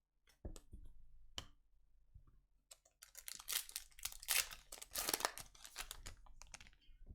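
A couple of light clicks, then a few seconds of crinkling and tearing as the foil wrapper of a trading-card pack is ripped open and handled.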